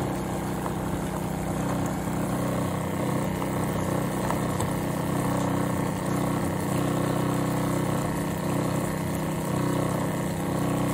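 Shurflo 2088 12-volt diaphragm sprayer pump running with a steady hum, pumping fluid at low pressure back into the tank through the pressure regulating valve.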